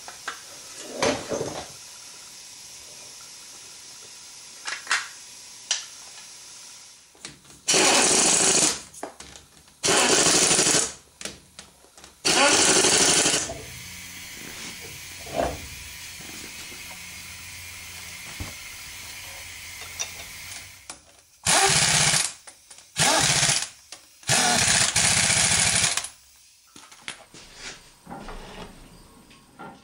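Impact wrench running in six short bursts of about a second each, tightening bolts on a truck's rear axle, with a few light clicks of tools in between.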